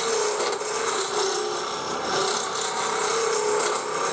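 Spindle roughing gouge cutting a spinning wood blank on a Jet lathe set to about 3,000 rpm. The cut runs steadily as the blank is roughed down to round, with a steady hum underneath.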